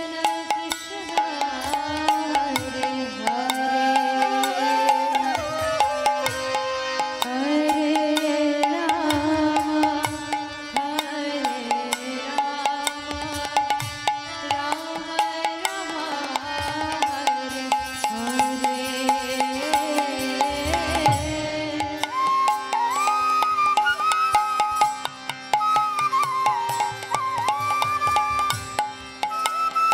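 Kirtan music: harmonium chords under a gliding melody, with hand-drum strokes and small hand cymbals keeping the rhythm. About two-thirds of the way in, a bamboo flute takes the lead with a higher, ornamented melody.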